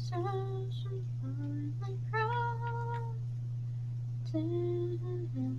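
A girl singing to herself, unaccompanied: a few short phrases of held notes with brief pauses between them, over a steady low hum.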